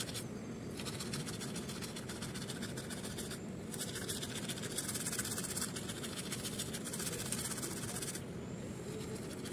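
A toothbrush scrubbing teeth with a steady, rapid, scratchy brushing sound. It eases off near the end.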